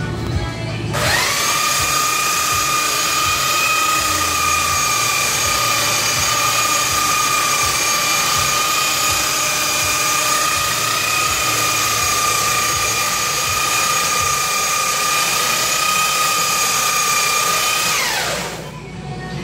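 Electric belt sander switched on about a second in, its motor whine rising to a steady pitch as it is run over a wooden tabletop, then winding down with a falling pitch near the end.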